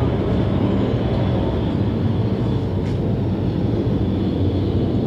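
Several mini sprint race cars' engines running at racing speed around the track, a steady blend of engine noise with no single car standing out.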